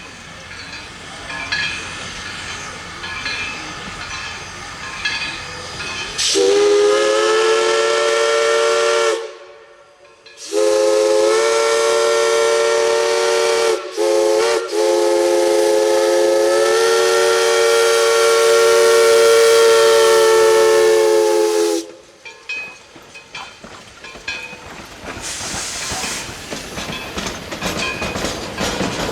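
East Broad Top No. 16, a 2-8-2 steam locomotive, blowing its chord-like steam whistle in the grade-crossing pattern: two long blasts, a brief toot, then one long held blast. Before and after the whistle the train can be heard running, with rhythmic clatter and hiss.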